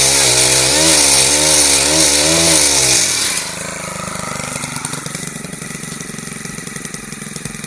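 Chainsaw running at high revs, its pitch wavering up and down for about three seconds, then dropping to a much quieter, steady running sound.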